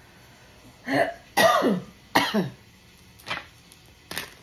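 A person clearing their throat: three short, loud throat-clearing sounds starting about a second in, the pitch of each dropping sharply, followed by a couple of faint clicks.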